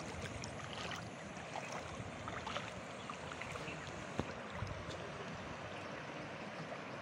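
Steady rushing noise of a swollen river in flood, muddy water streaming past, with a faint click about four seconds in.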